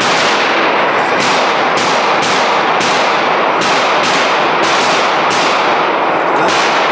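Gunshots fired in quick succession, about a dozen of them, each ringing on into the next so that the noise never drops between shots.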